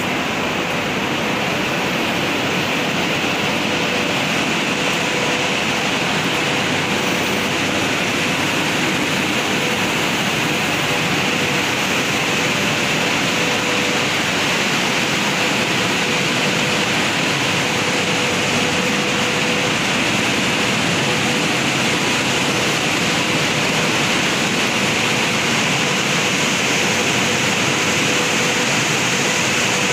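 Steady loud whooshing hiss of electric locomotive cooling blowers running, with a faint steady hum underneath.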